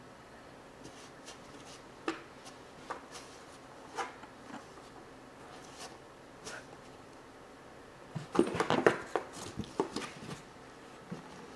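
A cat pawing and scrabbling inside a cardboard box: scattered light taps and scrapes on the cardboard, then a quick flurry of louder knocks and rustling about eight seconds in.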